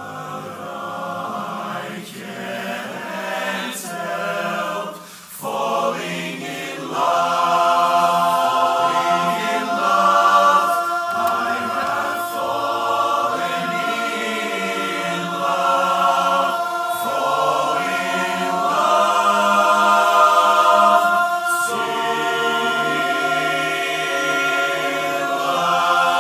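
Men's barbershop chorus singing a cappella in close four-part harmony. It starts softer, with short breaks between phrases, and swells into loud, sustained ringing chords from about seven seconds in.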